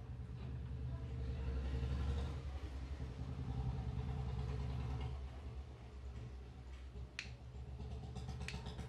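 A motor vehicle's engine rumbling, loudest over the first five seconds and then fading. Two sharp knuckle cracks follow, about a second and a half apart, near the end.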